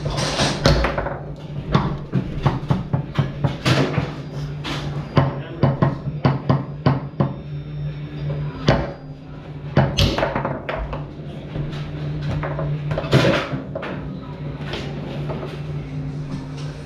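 Foosball in play on a Tornado table: the ball cracking off the plastic men and the table walls, with rods clacking, in quick irregular knocks, several of them loud single shots.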